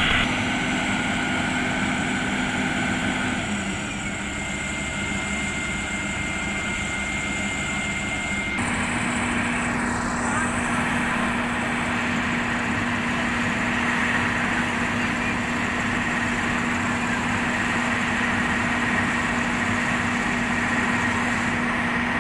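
Diesel engines of hydraulic excavators running steadily, with a low hum and a faint high whine; the sound changes abruptly about a third of the way through.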